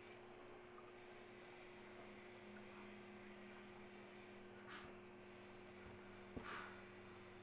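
Near silence with a steady low electrical hum; a faint click and a short soft rustle near the end.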